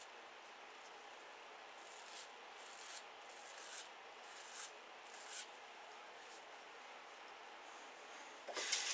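Half blade in a Turkish shavette scraping over stubble in about five faint, short strokes, a touch-up pass under the jaw. Near the end, a tap starts running water into the sink.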